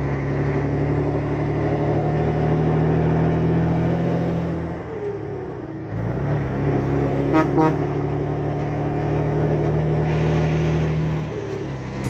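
Scania 113 truck's diesel engine running under way, heard from the cab, with a steady low drone. The engine note falls away for about a second near the middle and then picks up again, and a brief rapid buzzing sound cuts in a moment later.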